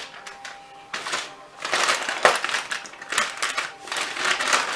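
Close-up crunchy chewing of fried food, a run of crunches about one to two a second, with one sharp crack about two seconds in.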